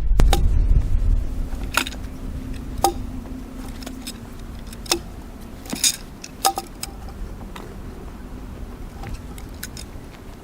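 Scattered sharp metallic clinks and knocks, about nine over a few seconds, some with a brief ring, from steel log-handling gear being worked against a log. A low rumble in the first second and a half.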